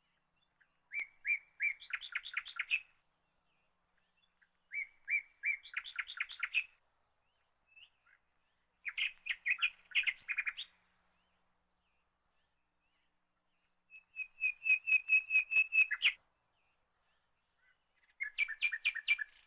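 A songbird singing in five short phrases of quick repeated notes, each phrase about two seconds long, with pauses of a second or more between them.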